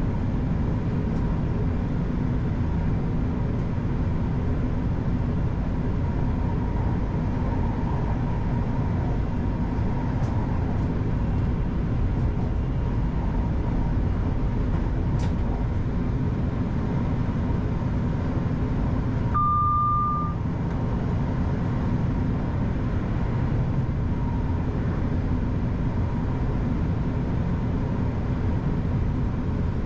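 Class 331 electric multiple unit heard from the driver's cab: a steady low rumble. About two-thirds of the way through comes one short, high beep lasting about a second.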